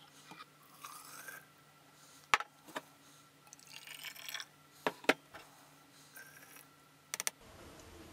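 Boiling water poured from a glass graduated cylinder into a glass jar of solid soap chunks, heard as soft splashing hiss. It comes with a few sharp clicks and knocks of glass being handled and set down.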